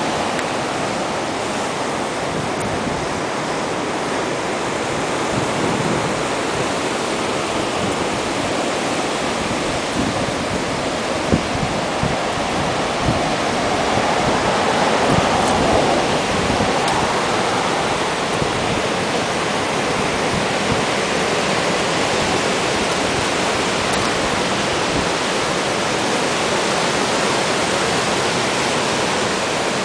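Ocean surf breaking and washing up the beach: a steady rush of waves that swells louder about halfway through.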